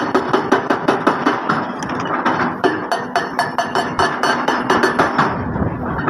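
Excavator-mounted hydraulic rock breaker hammering stone, a rapid even run of blows about seven a second that stops about five seconds in, leaving the excavator's diesel engine running.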